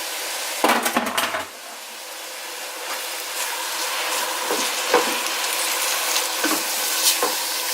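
Onion and grated carrot sizzling in oil in a large pot, with a spoon stirring and scraping against the pot a few times. About a second in there is a brief clatter, after which the sizzle drops and slowly builds back up.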